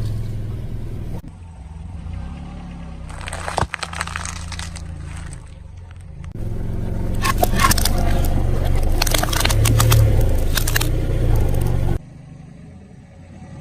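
Car engine running low while its tyre rolls over and crushes objects, with a short burst of crackling and crunching and then a longer stretch of crackling and popping.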